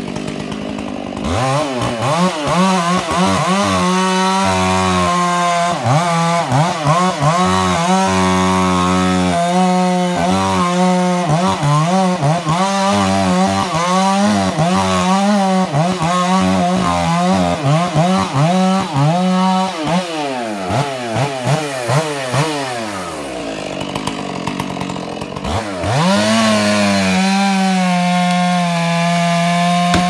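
Chainsaw cutting into a large Douglas fir during a bore-cut felling, the engine revving up and down over and over as it works the cut. About twenty seconds in it falls back to a low idle, then about six seconds later it goes back to full throttle and holds there steadily.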